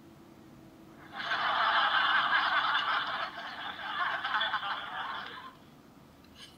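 A man laughing breathily in a hissing way, starting about a second in and stopping after about four seconds.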